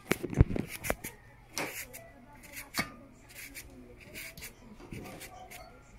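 Papaya being shredded with a handheld plastic shredder over a steel bowl: repeated rasping scrapes, a few a second, with a few louder knocks in the first second.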